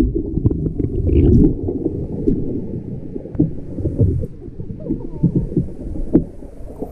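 Kayak roll with a paddle float: water sloshing and gurgling in deep, muffled surges, with scattered knocks and splashes.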